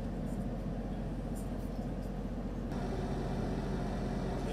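Engine running steadily at idle, a low even hum with a few faint clicks over it.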